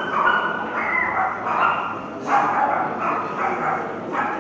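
A dog yipping and whining in a string of short, high calls, one after another.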